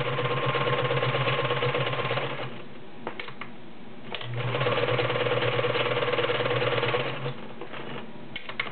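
All-metal Kenmore Model 1941 sewing machine stitching through a stack of 14 layers of cotton, running steadily in two spells of about three seconds each. In the short stop between them and near the end there are a few light clicks.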